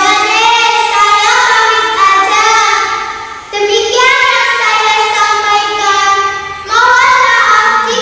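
A young girl singing solo in long, held, wavering notes. She breaks briefly for breath about three and a half seconds in and again near seven seconds.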